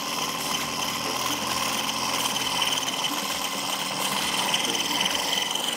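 Corded handheld electric mixer running steadily in a glass bowl, whipping egg whites that are not yet fully stiff, with a steady motor whine.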